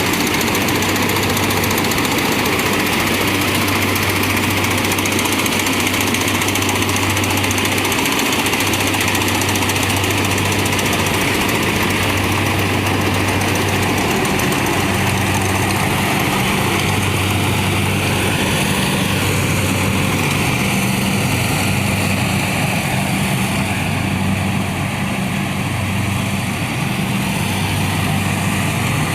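Kubota combine harvester running steadily while harvesting rice: a constant low engine hum under a steady hiss.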